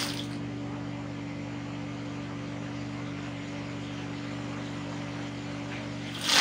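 Steady low electric hum made of several even tones, with no stitching heard.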